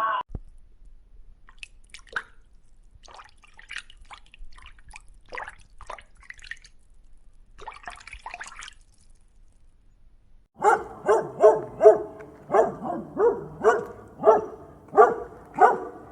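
Faint, irregular dripping and clicking for about ten seconds. Then a dog starts barking in a steady run, about two barks a second.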